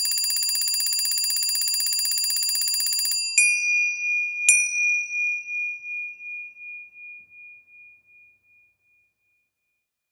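A bell-like ring trilling rapidly for about three seconds, then two single strikes about a second apart whose tones ring on and fade away by about eight and a half seconds.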